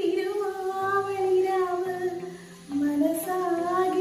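A woman singing a slow melody solo, holding long notes, over a low, steady instrumental backing; her voice drops to a lower note a little past the middle.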